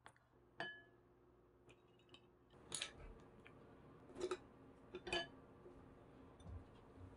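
Wooden chopsticks and a wooden spoon knocking against a ceramic bowl as the tableware is gathered up. There are a few faint clicks, with a short ringing chink under a second in and three sharper knocks later on.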